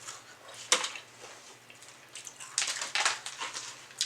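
Crispy pan-fried chicken being bitten and chewed close to the microphone: one sharp crunch about a second in, then a run of crackly crunching chews in the second half.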